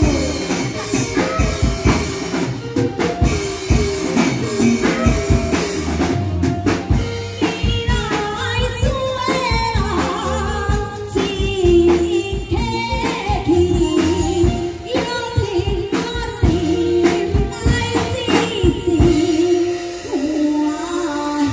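Taiwanese opera (gezaixi) aria sung into a microphone over amplified band accompaniment with a steady drum beat. The drums drop out near the end, leaving a held sung note over sustained accompaniment.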